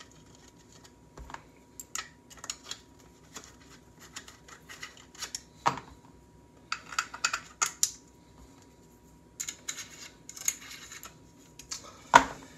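Irregular clicks and light knocks of rifle parts being handled as a handguard is fitted onto a Sage EBR chassis, with a firmer knock about halfway through and a sharper one near the end.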